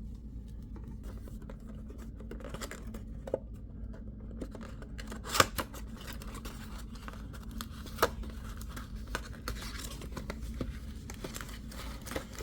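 Trading cards and their packaging being handled: light scraping and rustling of card stock, with a sharp tap about five seconds in and another about eight seconds in, over a steady low hum.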